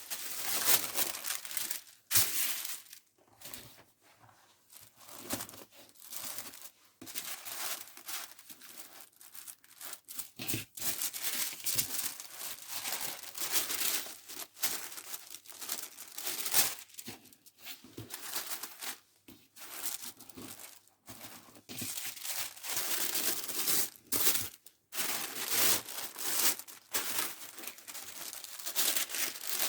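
Packing materials crinkling and rustling as they are handled, in irregular bursts with sharper tearing sounds scattered through.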